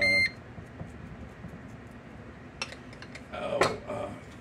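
Digital countertop air fryer oven beeping once, a short high electronic tone. About three seconds later a spoon clinks and scrapes against the metal pan and mixing bowl while bean patty mixture is spooned out.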